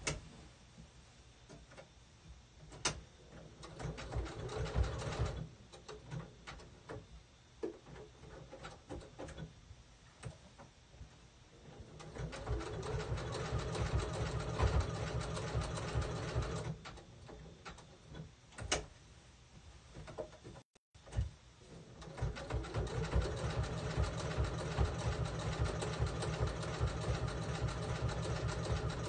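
Sewing machine stitching an appliqué letter onto a towel, running in stop-start runs: a short burst, a longer run, then steady stitching through the last third, with small clicks between runs.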